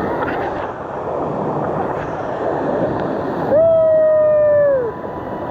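Waterfall rushing steadily. About three and a half seconds in, one loud held high call rises over it and drops in pitch as it ends.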